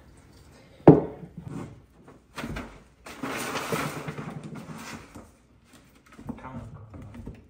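A sharp knock about a second in, followed by stiff cardboard floor-protection sheets rustling and scraping as they are pulled and shifted.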